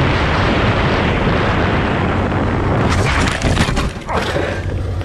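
Motorcycle at speed with heavy wind rush over the camera and the engine running underneath. About three seconds in the bike crashes: a burst of knocks and clattering impacts as it goes down and the camera tumbles.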